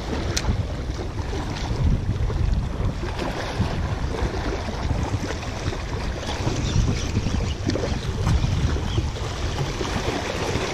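Small sea waves washing against rocks, with wind buffeting the microphone: a steady rushing noise. A single sharp click about half a second in.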